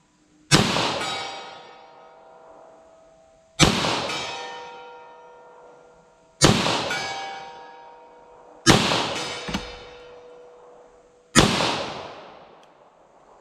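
Five pistol shots from a .40 S&W handgun, about two and a half to three seconds apart, each followed by a ringing tone that fades over a second or two: the steel silhouette target ringing from hits at 75 yards.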